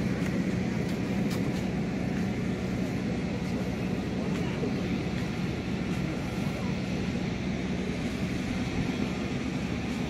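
Steady drone of an aircraft engine running on the apron, with a constant low hum, and faint voices of boarding passengers.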